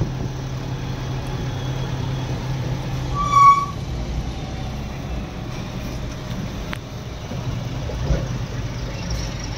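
Eicher Pro 2114XP truck's four-cylinder diesel engine running steadily under way, heard from inside the cab with road noise. A vehicle horn gives one short beep about three and a half seconds in.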